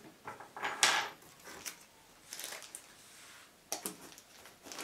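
Plastic packaging crinkling and rustling as hands handle bagged parts in a cardboard box lined with foam: a few short rustles, the loudest about a second in.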